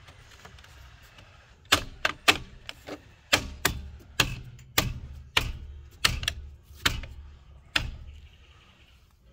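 Plastic hubcap being knocked onto the steel wheel by hand: a dozen or so sharp knocks at about two a second, as the wheel cover is seated on the rim.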